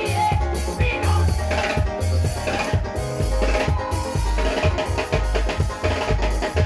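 Live band music: an electronic keyboard and drums playing over a steady, heavy bass beat.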